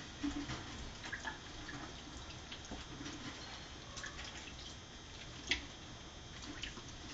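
Water dripping and splashing in a stainless steel sink as a wet kitten is washed, with scattered small clicks and knocks and one sharper knock about five and a half seconds in.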